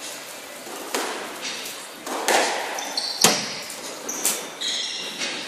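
A squash rally: the ball is struck by rackets and smacks off the court walls in about five sharp cracks that ring in the court, the loudest about three seconds in. Short high squeaks of court shoes on the wooden floor come between the later hits.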